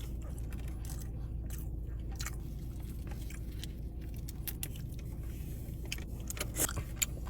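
Close-up eating sounds: chewing seafood with wet mouth clicks and small sharp ticks scattered throughout, over a steady low hum.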